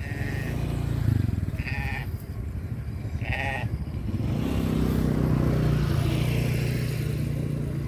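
Short pulsing bleats from livestock, repeated about every one and a half seconds and stopping near the middle. A low engine hum then builds and grows louder.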